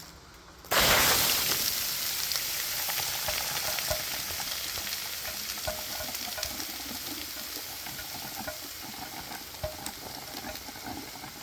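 A bucket of water dashed onto a red-hot small engine that has just blown a connecting rod: a sudden loud splash about a second in, then steady hissing and sizzling with crackles as the water boils off the hot metal, slowly dying down.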